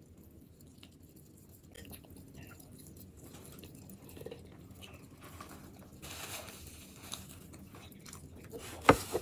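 A person chewing a cheeseburger and fries close to the microphone, with soft wet mouth clicks that grow busier partway through. A few sharp clicks near the end are the loudest sounds.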